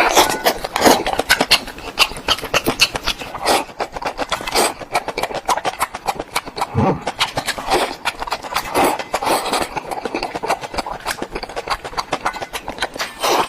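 Close-up chewing of fish: a dense, irregular run of wet mouth clicks and smacks.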